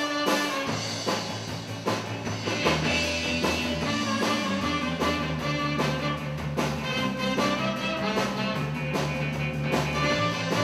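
Background music with a steady beat: an instrumental track with guitar and drums.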